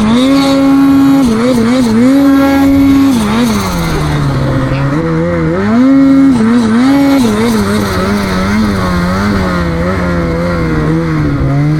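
Snowmobile engine under throttle. The revs hold high for about three seconds with a few quick blips, drop about three and a half seconds in, then climb and fall again and again as the throttle is worked.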